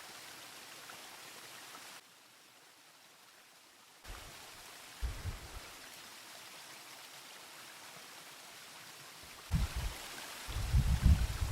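A cold mountain river running steadily, a continuous rushing hiss that goes quieter for about two seconds near the start. Dull low thumps come about five seconds in, and a louder cluster of them near the end.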